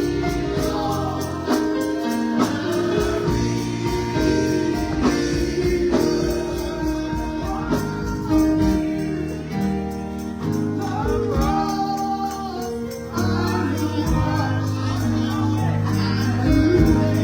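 Live gospel hymn music: sung vocal lines over sustained keyboard chords, with a tambourine struck steadily throughout.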